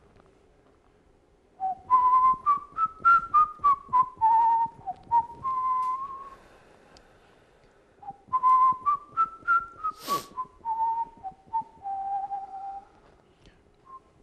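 A person whistling a tune in two phrases, the first starting about two seconds in and the second about eight seconds in, each note struck sharply. A brief sharp noise cuts through partway into the second phrase.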